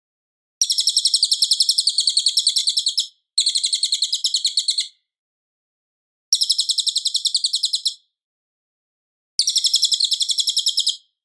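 Cililin song: four loud, fast, high trills of rapidly repeated notes, each lasting one and a half to two and a half seconds, with short silent pauses between them.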